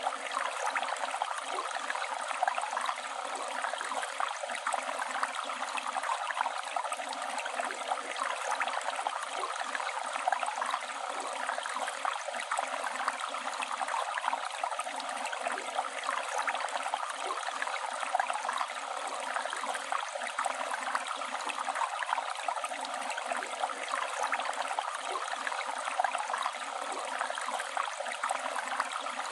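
River water flowing, a steady, unbroken rush with no letup.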